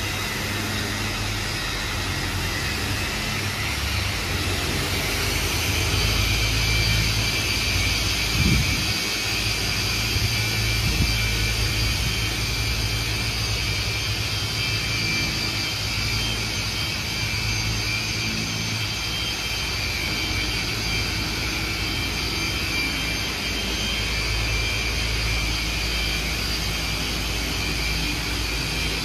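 Corded electric car polisher with a foam pad running steadily as it buffs the painted bonnet of an SUV, a constant motor whir, with a brief low thump about eight seconds in.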